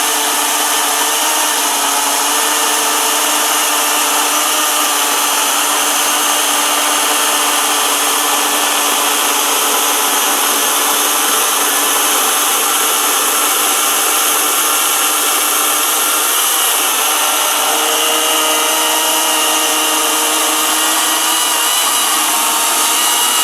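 Greenworks battery-powered electric chainsaw running steadily as it cuts through a large oak limb, with a constant motor whine, until it stops abruptly just after the end.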